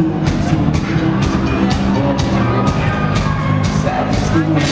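A rock band playing live and loud: a steady drum beat with cymbal hits over sustained bass and guitar, mostly without vocals.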